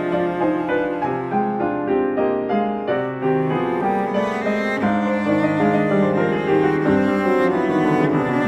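Cello and piano duet playing an aria in an old style: the cello holds long singing notes over piano chords.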